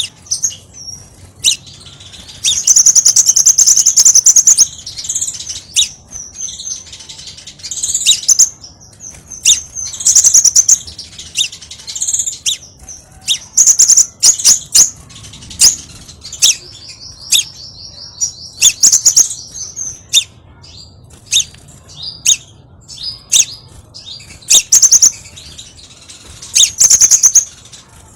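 Scarlet minivet (sepah raja) calling energetically: repeated spells of high, sharp chirps and whistles, with a long rapid trill in the middle stretch.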